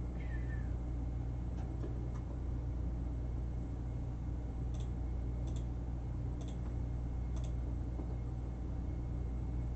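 Steady low electrical hum with a few faint, sharp clicks over it: two near the start, then four about a second apart in the middle.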